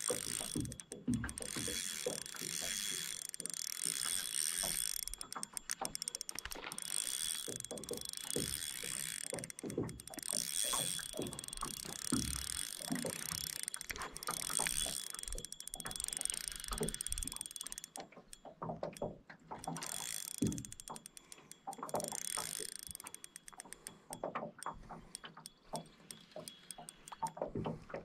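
Fishing reel being cranked, a dense run of small mechanical clicks from its gears and handle, easing off for a moment a little past the middle.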